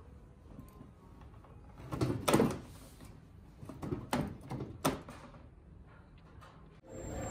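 Slippers being dropped into a slipper-return machine, its slot flaps knocking: a loud clunk and clatter about two seconds in, then a few sharper clicks a couple of seconds later.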